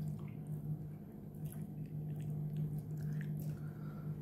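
A fork prodding and picking through takeaway food on a plate: a few faint clicks and soft, squishy sounds over a steady low hum.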